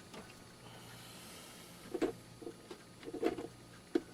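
Light clicks and knocks of a cable and plastic parts being handled inside a desktop computer case while the optical drive's cable is fitted. The clicks come about two seconds in, as a small cluster around three seconds, and once more near the end, over a faint steady hum.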